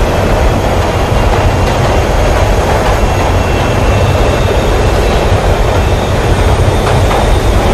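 Metro train running through a tunnel: a steady rumble of wheels on rails and running gear, with a faint high whine coming in about halfway through.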